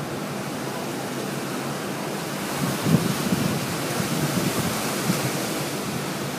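Steady rush of strong storm wind, with wind buffeting the microphone.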